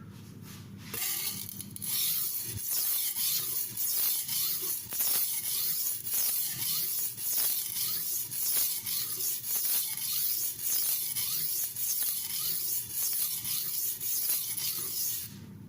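Stainless steel kitchen knife being ground on a wet silicon carbide whetstone: rhythmic back-and-forth strokes, each a gritty, hissing scrape as the steel rubs through the water and loosened abrasive slurry. The strokes start about a second in and stop just before the end.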